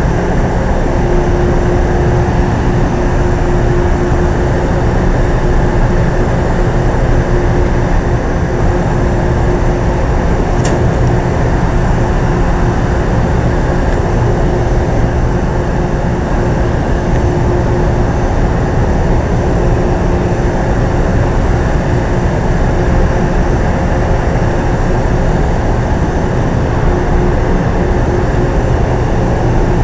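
Steady hum and rush of a Metro-North electric train car standing at the platform, its onboard equipment running, with a constant mid-pitched tone over a low rumble. A faint click about ten seconds in.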